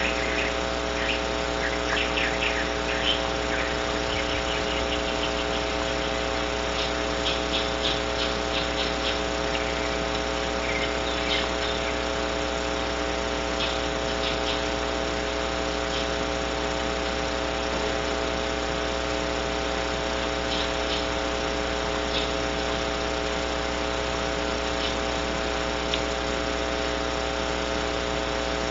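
Steady electrical hum and hiss from a nest-box webcam microphone. Short, high clicks and chirps come in clusters over the first quarter minute, then thin out.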